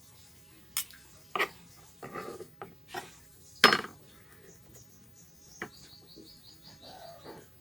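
Several sharp clinks of kitchenware, a cup or glass and utensil, spaced out over the seconds, the loudest about halfway, with light handling sounds between. Near the end a bird chirps rapidly, about eight chirps a second for a second and a half.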